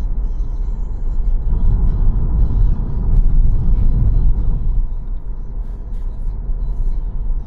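Steady low rumble of a car's engine and tyre road noise heard from inside the cabin while driving, swelling a little between about two and four seconds in.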